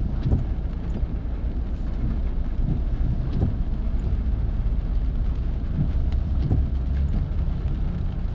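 Car driving on a rain-wet street, heard from inside the cabin: a steady low rumble of engine and road, with scattered irregular taps and knocks.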